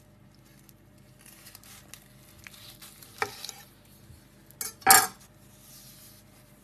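Chef's knife slicing down through a roasted rack of lamb on a wooden cutting board: faint scraping of the blade through the crust and meat, a sharp knock about three seconds in, and a louder short scrape near five seconds as the cut goes through.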